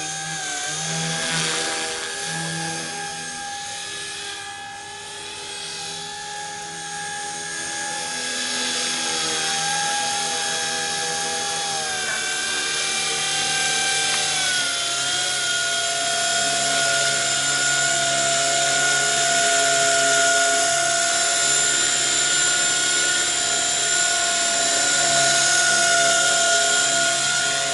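Blade 180 CFX RC helicopter's electric motor and rotors whining steadily in flight, the pitch dropping slightly about halfway through. In the second half a high thin squeal rides over the whine, which the owner takes for the bearings going out.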